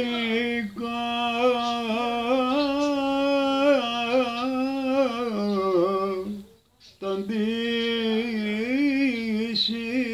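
Elderly man singing a Cypriot ballos folk song unaccompanied, in long, wavering, ornamented held notes with no clear words. He breaks off for breath about six and a half seconds in, then carries the line on.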